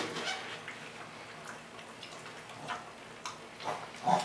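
Small dog licking and smacking its lips while its teeth are brushed, heard as irregular soft wet clicks and smacks, with one louder smack near the end.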